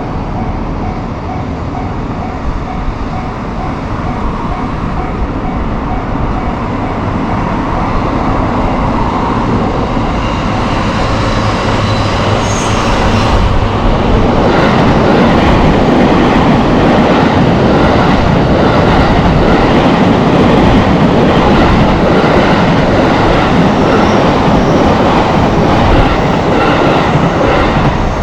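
A JR electric commuter train running past a level crossing. The noise builds from about ten seconds in and is loud and steady from about fourteen seconds on. Early on a crossing warning bell rings in a quick even rhythm.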